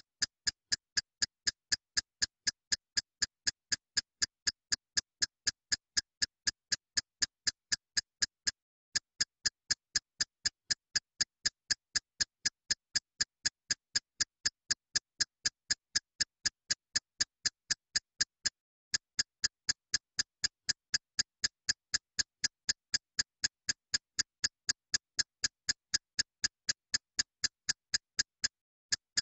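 Sharp, evenly spaced clock-like ticking, about three ticks a second, with nothing heard between the ticks. The ticking stops for a moment about every ten seconds, then carries on at the same pace.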